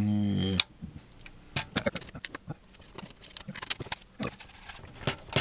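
Small 3D-printed PLA plastic parts being handled and pushed together: scattered light clicks and knocks as the pieces are fitted onto the ring light's bracket. A man's voice is heard briefly at the very start.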